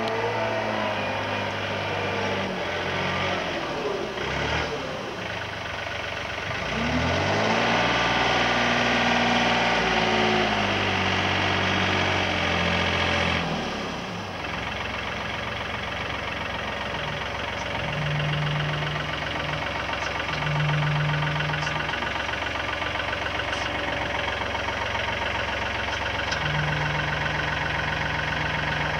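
Diesel engine of a 2013 Yanmar V3-6 compact wheel loader running, its pitch rising and falling as the machine drives in and raises its bucket, loudest in the middle. About halfway through it settles to a steadier idle, with a few short steady whines in the second half.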